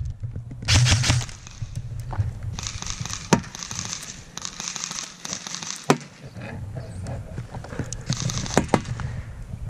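Rustling and crinkling of a player moving in grass against a cardboard box, with three or four sharp snaps spread through, the loudest about 3 and 6 seconds in.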